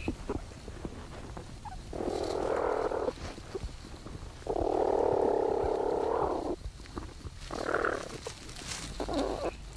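Platypuses in their nesting burrow making low, raspy calls. There is a call of about a second, then a louder one of about two seconds, then two short ones near the end.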